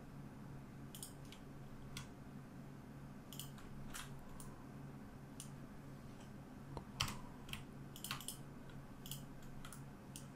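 Computer keyboard keys and mouse buttons clicking at irregular intervals, about a dozen sharp, faint clicks, over a faint steady low hum.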